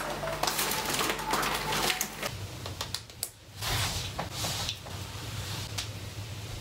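Plastic carrier bags rustling and things being set down on a kitchen counter: a quick run of clicks, knocks and crinkles. About two seconds in, the sound changes abruptly to a quieter steady room hum with a few scattered taps.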